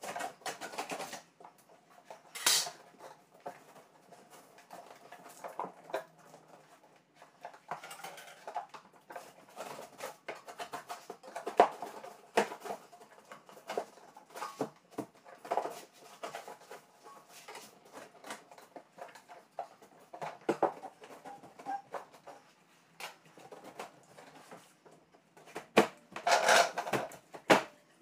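Irregular small knocks, clicks and scrapes from hand work on a window frame, with a louder cluster of knocks near the end.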